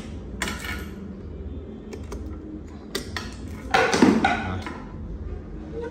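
Cables being unplugged from the jack sockets of a Mackie 1202-VLZ Pro mixer: a string of separate clicks and short cable-handling rattles, the loudest about four seconds in.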